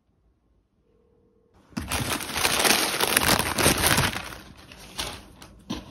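A cardboard shipping box being opened and the paper wrapping inside crinkling and rustling. It starts loud about two seconds in and eases to lighter crinkles near the end.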